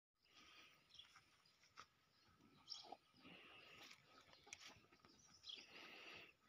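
Near silence: faint outdoor ambience with a few faint chirps and rustles.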